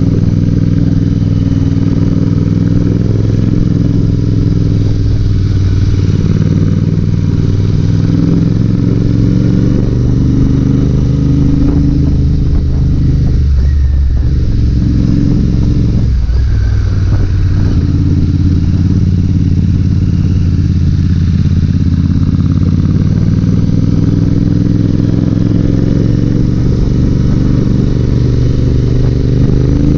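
Royal Enfield Interceptor 650's parallel-twin engine running steadily under way, heard from the rider's seat. The engine note drops off briefly twice near the middle and climbs again near the end.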